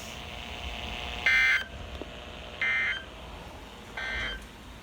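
Three short bursts of EAS digital data tones (SAME/AFSK warble) from NOAA Weather Radio, about a second apart: the end-of-message code that closes the tornado watch alert.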